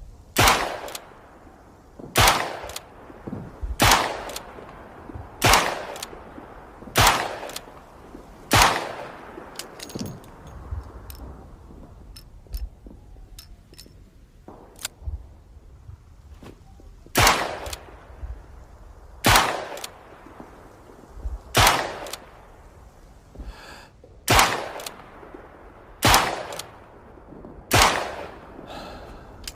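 Smith & Wesson Model 3 revolver firing: six sharp shots about a second and a half apart, a pause of about eight seconds filled with light metallic clicks and rattles, then six more shots, each ringing out briefly.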